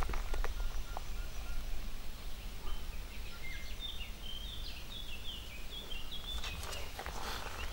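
A small bird singing: a run of short, high whistled notes stepping up and down, starting about three seconds in and lasting some four seconds, over a low steady rumble and a few faint handling clicks.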